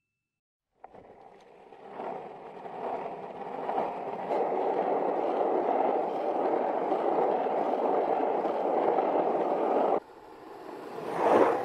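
Logo-reveal sound effect: a dense rushing noise that starts about a second in, builds, then holds steady before cutting off suddenly near the end. A short whoosh swells up and fades right after.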